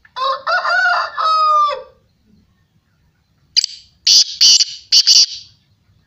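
A pitched, wavering call lasting under two seconds, then after a pause a black francolin's harsh, grating call of four loud rasping notes.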